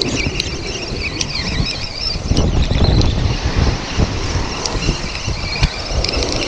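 Surf breaking and washing over rocks, with wind buffeting the microphone; the wash swells louder about two and a half seconds in, and a few light clicks come through.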